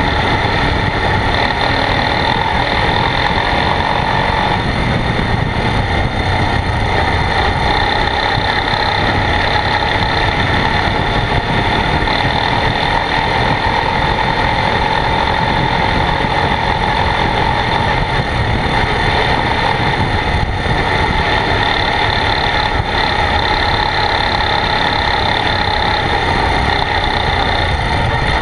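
ATV engine running steadily as the quad rides along a dirt trail, heard up close from a camera on its front rack, with no let-up.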